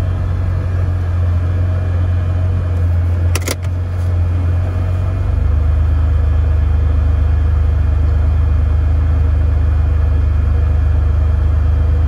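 Air-cooled Porsche 911 flat-six engine running steadily, heard from inside the cabin along with the air-conditioning blower. There is a short click about three and a half seconds in, and about five seconds in the engine drone settles a little lower and evener as the car stands idling.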